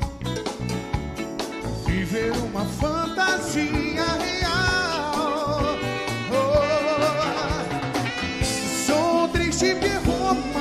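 Live big band music with horns, drums and Latin percussion playing an arrangement of a Brazilian pop song. A wavering lead melody with vibrato comes in over the band about three seconds in.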